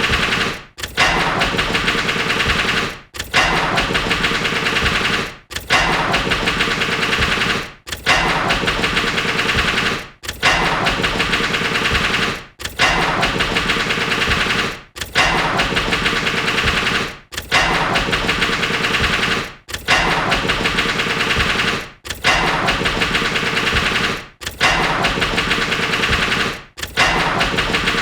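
Car engine turned over on the starter, catching briefly and then stalling, again and again: each attempt lasts about two seconds with a rapid even chatter and dies away, repeating about every two and a half seconds.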